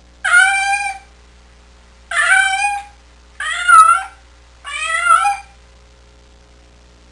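Domestic cat meowing four times, each meow under a second and bending in pitch.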